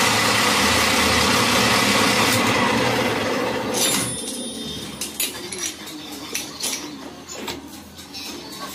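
Metal lathe running with the steel workpiece spinning in the chuck, then winding down and stopping about three to four seconds in. After that come scattered metallic clinks and knocks as the chuck key is fitted and worked on the chuck.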